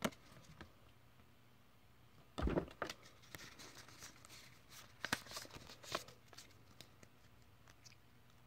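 Trading cards and a foil booster-pack wrapper being handled: a few soft rustles and taps as the cards are slid out of the opened wrapper and fanned, with one louder bump about two and a half seconds in.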